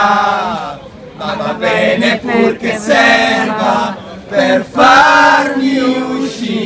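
A group of young men singing a chant together loudly, unaccompanied, in long held phrases with short breaks between them.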